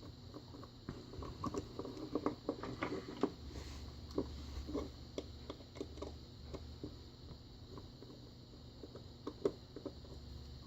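Faint, scattered small clicks and light metal taps as a pin-tumbler lock cylinder and a screwdriver are handled and worked at close range.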